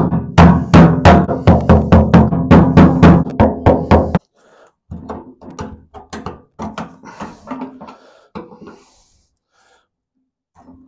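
Hammer striking metal in a fast run of about four blows a second, each with a ringing tone, stopping abruptly about four seconds in. It is followed by lighter, scattered taps.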